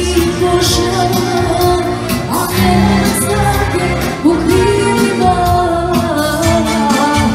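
Loud party music with a singing voice over a steady beat.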